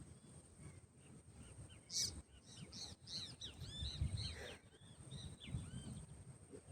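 A songbird singing a rapid run of short, arching whistled notes, starting about two seconds in and stopping about six seconds in, with low rumbles underneath.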